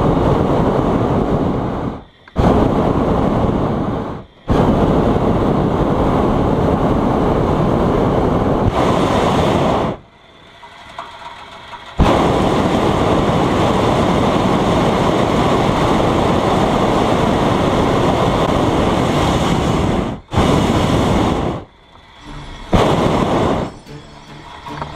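Hot-air balloon's propane burner firing directly overhead in a series of blasts, the longest about eight seconds, each cutting off abruptly with brief breaks between them, then two short blasts near the end.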